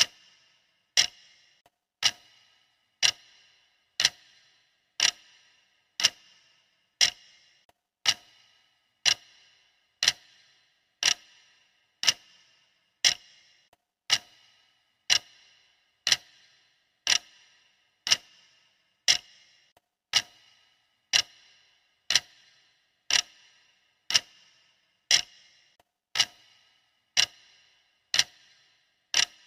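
Clock ticking steadily, one crisp tick each second, each tick with a brief high ring after it.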